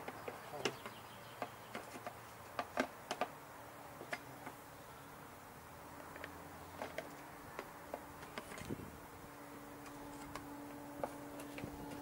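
Scattered light clicks and taps from hands and tools working over a lawn mower's parts, with a faint steady hum joining in the second half.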